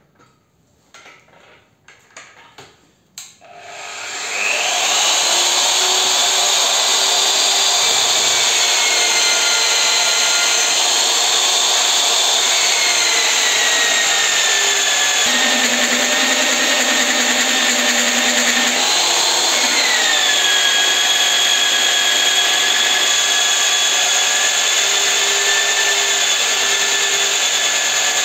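A few light handling clicks, then the ALLSOME BG-5157 drill's motor starts about four seconds in and runs steadily, driving a 22 mm hole saw into a square steel tube. Its whine dips and shifts in pitch a few times as the cutter takes load.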